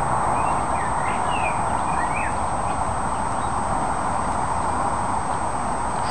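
A small bird chirping a few quick, sliding notes in the first two seconds, over a steady rushing noise.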